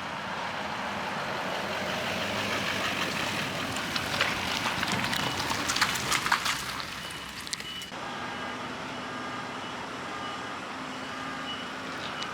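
Heavy vehicle running and manoeuvring, with clicks and knocks in the first half. In the second half a reversing beeper sounds in short repeated beeps.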